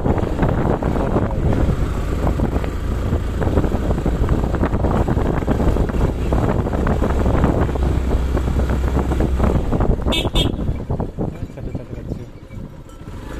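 Vehicle driving on a rough hill road: engine and road rumble with wind on the microphone, then two short horn toots about ten seconds in, after which the vehicle slows and quietens.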